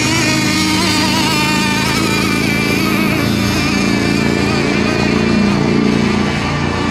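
Several radio-controlled racing boats' small engines running at high revs together, a steady loud drone of several pitches wavering against one another.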